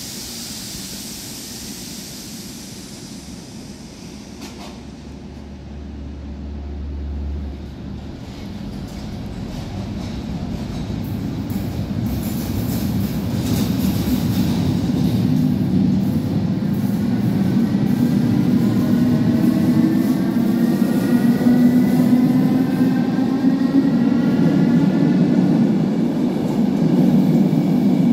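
SNCB AM80 electric multiple unit pulling out of a platform and accelerating past, the running noise growing steadily louder. From about halfway through, a whine of several tones rises in pitch as the train picks up speed.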